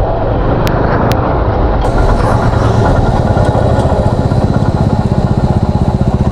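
Motorcycle engine running with a steady, regular throb, with two short clicks about a second in.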